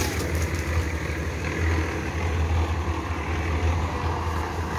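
Portable drum concrete mixer running steadily, a low pulsing hum.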